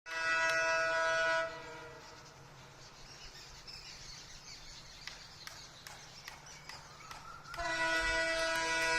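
Horn of a WDP4D diesel locomotive sounding two blasts, a chord of several tones: a short blast of about a second and a half, then after a pause a second, longer blast that slides up in pitch as it starts, near the end. A low rumble runs between the blasts.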